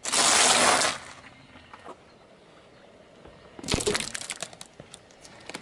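Car tyre crushing tortilla chips on asphalt: a loud crunching burst about a second long at the start, then a quieter stretch, then a second, shorter bout of crackling with sharp cracks near the middle.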